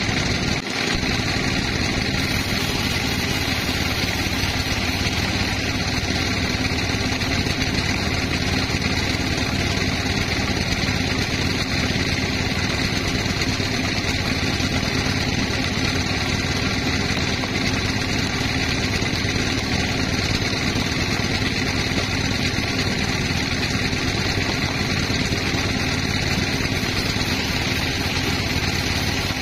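Sawmill machinery running steadily at a constant pitch and level, with no change through the whole stretch.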